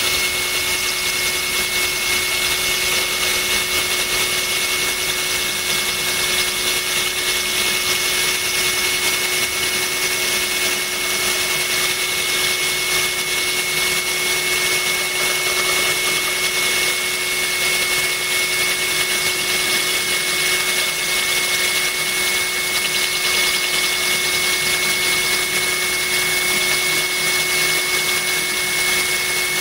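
Cordless drill running steadily, its bit grinding into the side of a glass bottle while water trickles onto the cut as coolant. A constant high whine and a lower hum over a hissing grind, with no change in speed.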